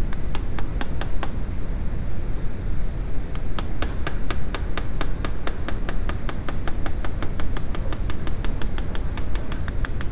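Sharp clicking from hand-tool work at a bench vise: a short run of five clicks, then after a pause a long, even run of about six clicks a second, over a steady low rumble.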